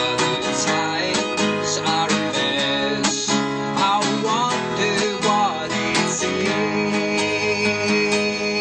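Small band playing a song live: a strummed acoustic guitar with electric bass and electric guitar, and a man singing.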